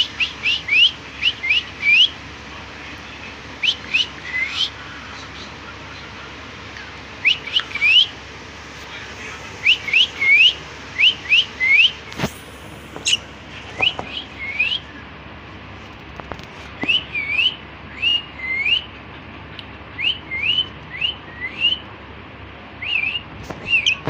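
Grey cockatiel chirping: short, sharp calls that rise in pitch, in quick clusters of two to four with pauses between. A single sharp click about twelve seconds in.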